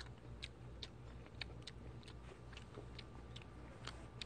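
A person chewing food close to the microphone: quiet, irregular mouth clicks, a few a second, over a low steady hum.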